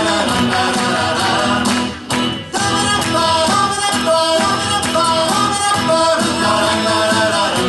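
Music from a recorded children's gospel song: an instrumental passage between sung verses, with a brief drop in loudness about two seconds in.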